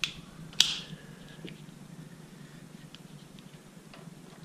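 Spring-loaded alligator clamps of a timing light's leads being clipped onto car battery terminals: a click, then a sharp metallic snap about half a second in, followed by a few faint small clicks as the clamps are handled.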